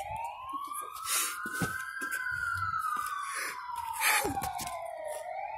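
Fire engine siren sounding a slow wail as the apparatus responds to a call. The pitch climbs for about two seconds, falls for about three, and starts to climb again near the end. A few short rustling knocks sound over it.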